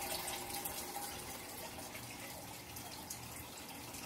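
A steady hiss like trickling water, with faint scattered clicks and a faint steady hum.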